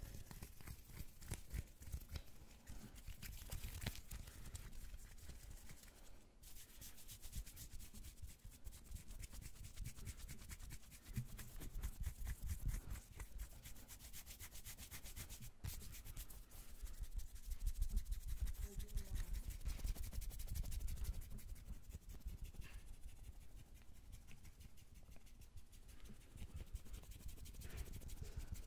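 Bare hands rubbing and sliding fast against each other right at a microphone: skin-on-skin swishing in quick, continuous strokes. The rubbing gets louder for a few seconds past the middle.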